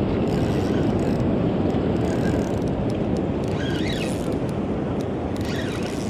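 Steady rushing noise of wind on the microphone and fast, turbulent river water.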